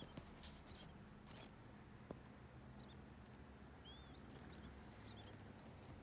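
Faint, high peeping from newly hatched quail chicks: a few short, scattered calls, with a soft click or two.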